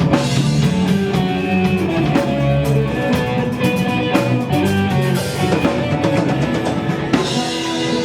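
Band music with a drum kit keeping a steady beat under guitar and bass.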